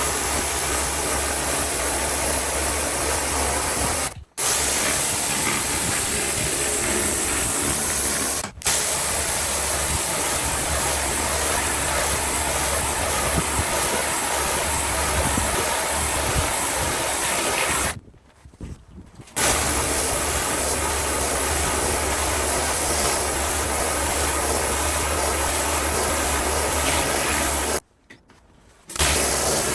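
Kranzle electric pressure washer running, with a steady hissing water jet over a low motor hum. It cuts out briefly four times, twice for about a second, before starting again.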